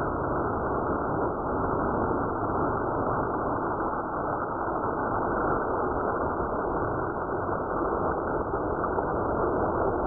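HO-scale Kenworth cab-over slot car trucks running round a plastic slot track with trailers in tow: a steady, even running noise with no distinct pass-by.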